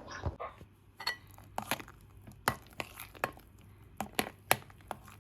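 Kitchen clatter: about a dozen sharp, irregular knocks and clinks of utensils and dishes being handled on a counter.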